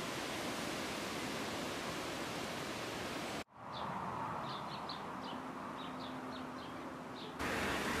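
Steady outdoor hiss, then after a sudden break about three and a half seconds in, a quieter background with a scattering of short, high bird chirps; the louder background hiss returns near the end.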